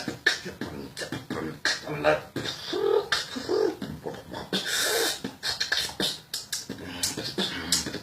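Beatboxing: rapid mouth-made drum clicks and hits mixed with short hummed tones, with one long hissing cymbal-like sound about halfway through.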